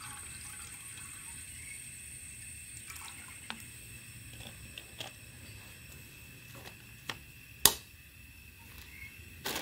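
Water trickling and dripping into a camping cook pot on a lit cartridge gas camping stove, over a steady faint hiss. A few light clicks follow, with one sharper knock about three-quarters of the way through.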